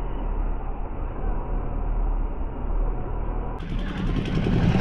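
Road and engine noise from a car on the move: a steady rumble that turns abruptly louder and rougher about three and a half seconds in.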